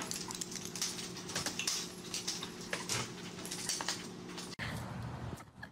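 A small dog's claws and a lattice baby gate clicking and rattling in many quick light taps as the dog scrambles over the gate, over a steady low hum. The sound cuts off about four and a half seconds in.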